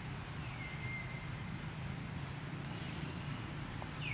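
Outdoor ambience: a steady low hum with short whistled calls that slide down in pitch and then hold, one about half a second in and another at the very end, and a few faint, very high chirps in between.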